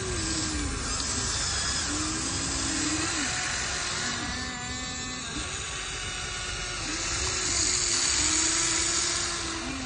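Small electric gear motors of an RC toy excavator and dump truck whining as they work, starting and stopping every second or two with the pitch rising and falling each time.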